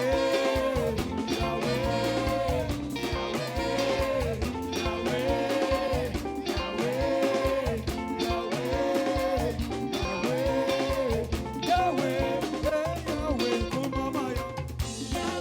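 Live gospel praise band playing an upbeat groove, with a repeating guitar or keyboard phrase over bass and drums.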